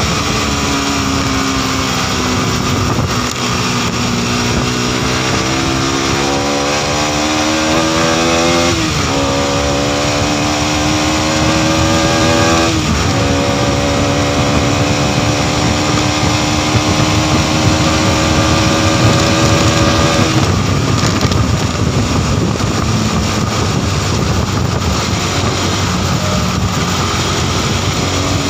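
Modenas NS200 motorcycle's single-cylinder engine under hard acceleration. Its pitch climbs, then drops sharply at upshifts about nine and thirteen seconds in, then holds steady. After about twenty seconds a steady rush of wind noise covers the engine note.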